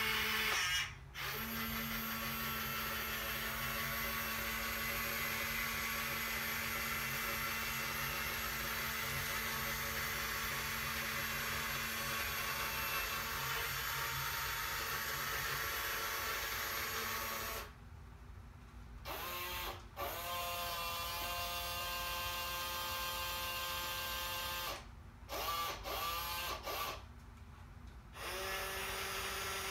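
Small electric motor and plastic gears of a 1988 New Bright toy fire truck's ladder mechanism, whirring steadily as the aerial ladder moves. The whir cuts out for about a second around two-thirds through, then stops and restarts a few times near the end.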